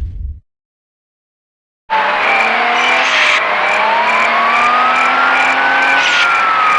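After a short silence, a loud alarm siren starts about two seconds in: a wailing tone sliding slowly down, then up and back down, over a harsh hiss, with a quick repeating high beep.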